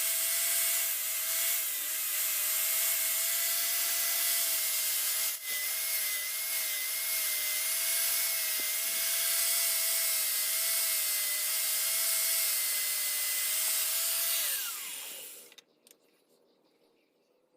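Electric power tool motor running with a steady high whine over heavy hiss. About three-quarters of the way through it is switched off, and its pitch falls as it winds down to near quiet.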